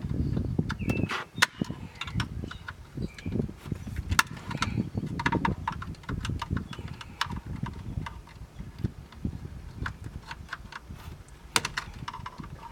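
Scattered clicks, taps and knocks of hands and a flathead screwdriver working loose plastic car interior trim and connectors, over an uneven low rumble.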